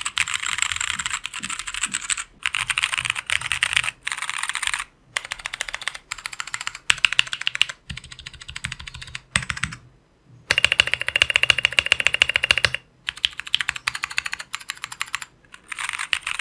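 Fast typing on a mechanical keyboard with stock Gateron Brown tactile switches, in several short runs separated by brief pauses. The runs differ in character as the keycap set is changed between Cherry, OEM and SA profile caps.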